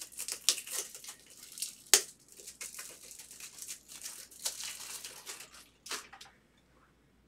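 Crinkling and tearing of plastic wrapping as a sealed trading-card box or pack is opened, with a sharp snap about two seconds in. The rustling stops a little before the end.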